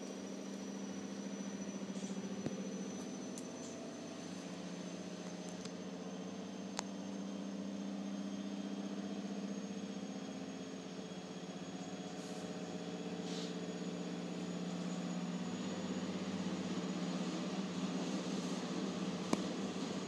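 A washing machine running, a steady mechanical hum. A few short, sharp clicks stand out above it.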